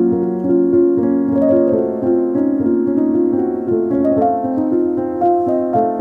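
Background piano music playing a gentle melody of sustained notes.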